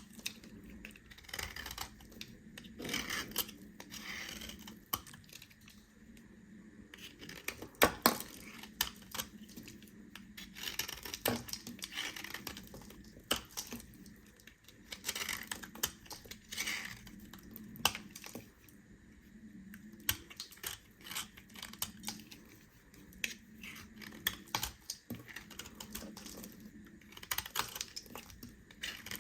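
A knife cutting through bars of soap: clusters of crisp crunching and crackling strokes repeat every second or two, with one sharper snap about eight seconds in.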